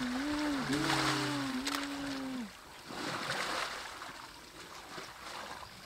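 Elephant bull wallowing in a muddy pool, water and mud sloshing and splashing around its legs and trunk. For the first two and a half seconds a wavering low tone sounds over it, then stops.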